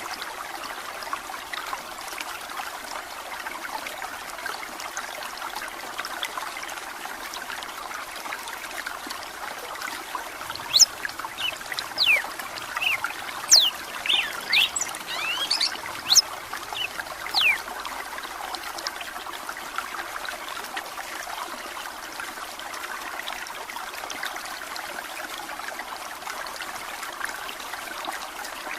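Steady trickling of running water throughout, with a red-cowled cardinal (galo-de-campina) singing a burst of sharp, quick whistled notes for about seven seconds in the middle.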